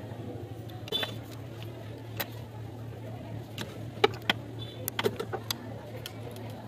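Scattered sharp clicks and light metallic knocks as the rear cover plate is handled and fitted onto a Brother zigzag sewing machine, over a steady low hum.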